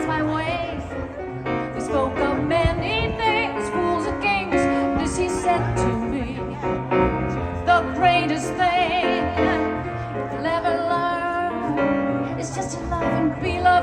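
A woman singing with a wavering vibrato on held notes, accompanied by jazz piano.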